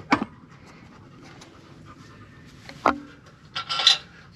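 Metal suspension parts and hand tools being handled: a knock at the start, a sharp clank with a brief ring about three seconds in, then a short rasping scrape near the end.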